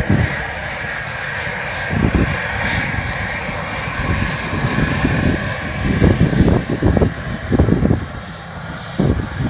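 Airliner engine noise, a steady loud rushing with a band of whine, with irregular low rumbles coming and going, thickest about six to eight seconds in.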